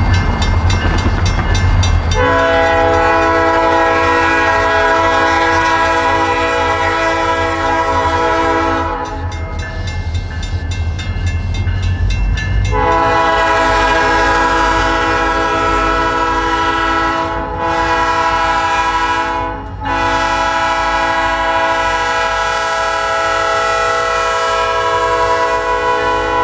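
Diesel freight locomotive's air horn sounding the grade-crossing signal, long, long, short, long, over the low rumble of the train.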